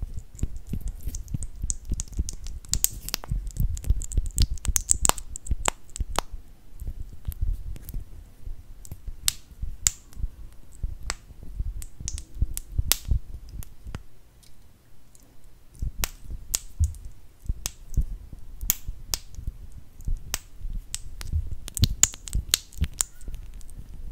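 Close-miked ASMR mouth sounds and tapping: irregular sharp clicks and smacks, at times several a second, over a low rumble.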